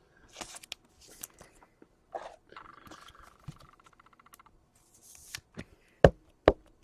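Trading cards and foil pack wrappers being handled on a table: soft rustles and scrapes, with a faint buzz midway. Near the end come two sharp knocks, the loudest sounds here.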